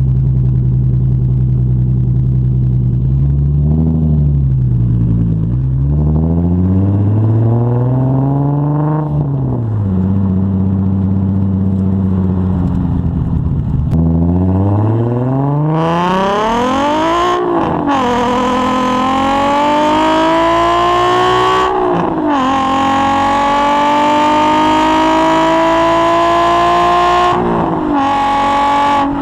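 Nissan 350Z's VQ35 3.5-litre V6 heard at the tailpipe through an aftermarket titanium exhaust. It idles and is blipped twice, the second rev held longer. About halfway through it pulls away and accelerates hard through the gears, its pitch climbing in each gear with three quick drops at the upshifts.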